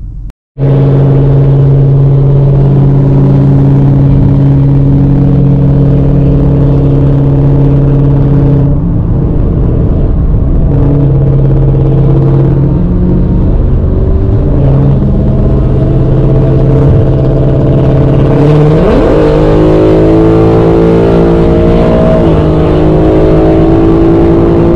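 Car engine and exhaust droning steadily, heard from inside the cabin while driving on a highway, after a brief dropout at the start. About two-thirds of the way in the pitch rises smoothly as the engine revs up under acceleration, then holds at the higher note.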